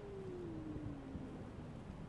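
Black stray cat's long, drawn-out warning yowl, sliding slowly down in pitch and fading out about a second and a half in: a defensive threat call, the cat scolding the person in front of it.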